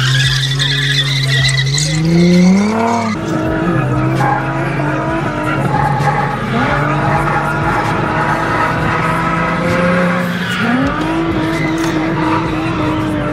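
Car engine revving during street drifting, its pitch climbing sharply about two to three seconds in and again a little past ten seconds, with tyres squealing.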